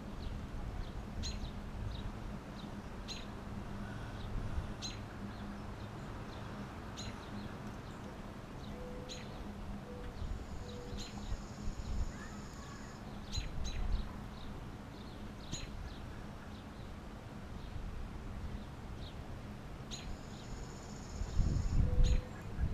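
A bird chirping repeatedly, short high calls every second or two, with a longer high trill twice, over a steady low outdoor rumble.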